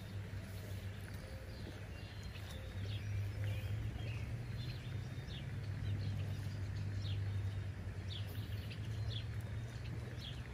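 Birds calling with short, repeated falling notes, about one a second, over a steady low rumble that grows louder about three seconds in.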